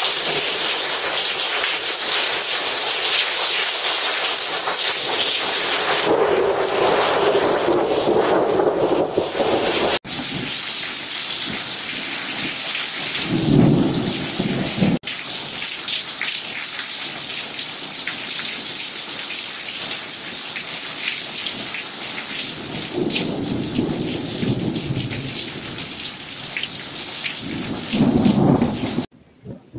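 Heavy rain pouring steadily, with low rolls of thunder rumbling through it several times; the loudest come near the middle and just before the end.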